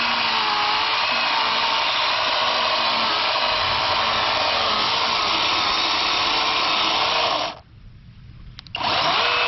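Handheld 6-inch mini chainsaw running while cutting into a pumpkin, its motor whine wavering in pitch as it bites. It cuts off suddenly about seven and a half seconds in, then starts again in a short burst near the end.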